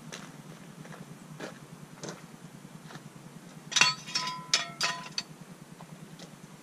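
Steel jack stand clanking as it is pulled out from under the car: a quick run of five or six sharp metallic clanks with a ringing tone, about four seconds in. A few faint crunching steps on gravel come before it.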